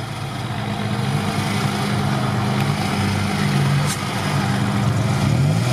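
Lifted off-road SUV's engine running at low, unsteady revs while the vehicle sits stuck in deep mud, not enough throttle to pull it out; the revs begin to climb near the end.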